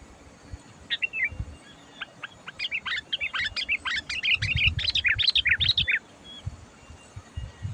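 Sooty-headed bulbul (kutilang) singing: a short phrase about a second in, then a fast, dense run of chattering whistled notes lasting about three seconds. A low rumble sits under the second half of the run.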